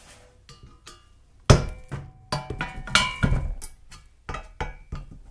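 Metal tool knocking against an exhaust manifold and its old, stuck exhaust donut gasket to free the seized seal: about seven sharp knocks and clinks, each with a short metallic ring, the loudest about a second and a half in.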